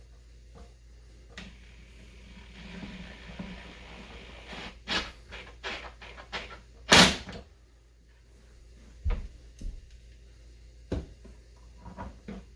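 Knocks and clunks of hardwood workbench parts being handled and set in place, after a soft rustle. A quick run of knocks builds to the loudest clunk about seven seconds in, with a few single knocks spaced out after it.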